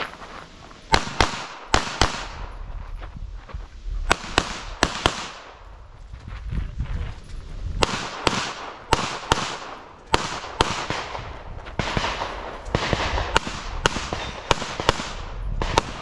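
Semi-automatic pistol fired in rapid pairs of shots at close targets, about two dozen sharp bangs in all, with pauses of a second or more between groups.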